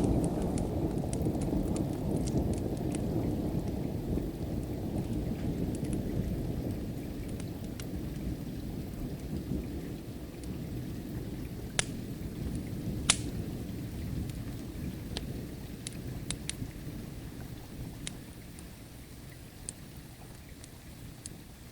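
A long low roll of thunder that slowly dies away, over steady rain. Occasional sharp pops of a crackling wood fire come through, two louder ones near the middle.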